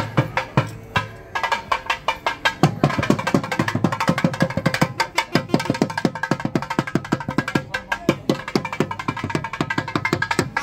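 Drums played in a fast, dense rhythm, with a steady held tone underneath.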